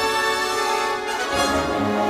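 Orchestral music with sustained notes; the harmony shifts about one and a half seconds in.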